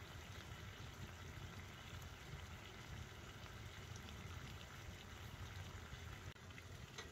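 Bacon frying in a pan: a faint, steady sizzle.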